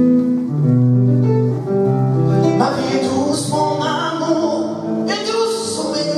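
Live song with acoustic guitar accompaniment, and a man's singing voice coming in about two and a half seconds in.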